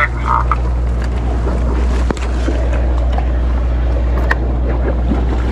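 A sportfishing boat's engine running with a steady low drone under a haze of wind and water noise, with one sharp knock about two seconds in.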